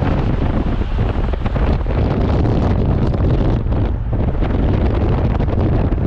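Strong wind buffeting the microphone: a loud, uneven rumble with gusty flutter.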